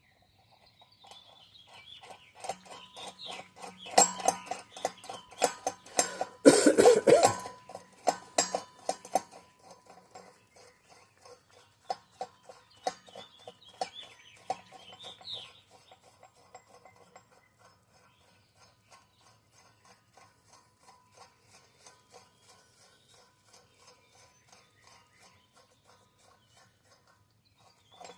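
Rapid, evenly repeated metallic clicking and clinking as the parts of a wheel bearing installer tool are handled and threaded together, loudest about six to eight seconds in, then fainter light ticking.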